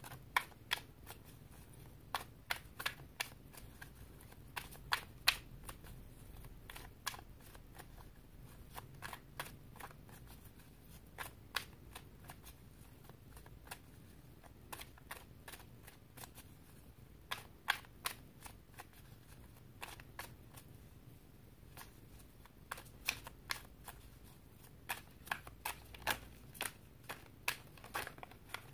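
A deck of oracle cards being shuffled by hand: irregular card snaps and clicks in clusters with short pauses between.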